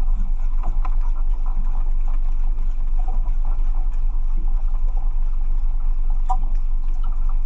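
Small boat's engine running steadily, a constant low drone with faint scattered clicks over it.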